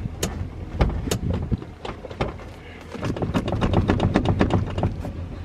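Low steady rumble of the car's engine running, with a run of irregular sharp clicks and taps over it that come thickest in the second half.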